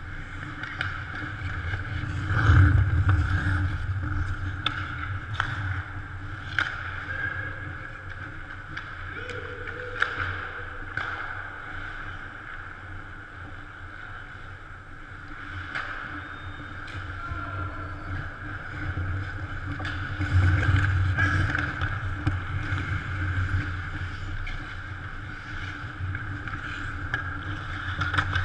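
Ice rink ambience during hockey play: skate blades scraping the ice and sticks and puck clacking now and then, over the arena's steady hum. A low rumble swells about two seconds in and again around twenty seconds.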